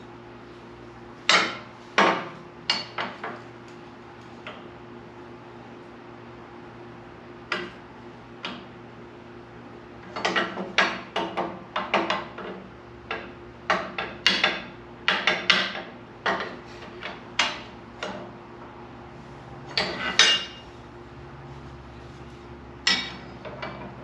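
Irregular clanks and knocks of steel parts being struck and handled, coming in scattered groups with the busiest stretch in the middle, over a faint steady hum.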